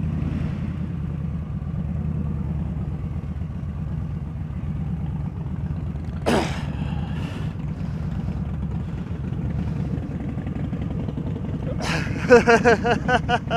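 Yamaha XVS1300 V Star's V-twin engine running at low revs with a steady low rumble as the bike rolls slowly along. A brief sharp sound comes about six seconds in, and near the end there is a loud, short run of rapid pitched pulses.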